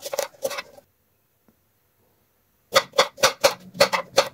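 Kitchen knife chopping apple into cubes on a cutting board: quick chops about four a second, a short run, then a pause of about two seconds, then a second run of chops.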